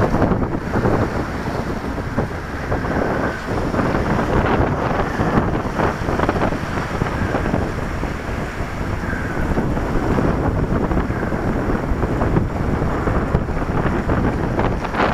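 Steady wind buffeting the microphone over the rush of water along the hull and wake of a gaff-rigged sailing yacht under way.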